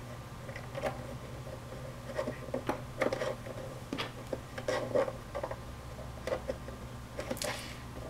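A screwdriver backs out the screw of the plastic memory cover on a Toshiba Satellite laptop's underside, with faint scratching and scattered small clicks as the tool turns and small tools are handled.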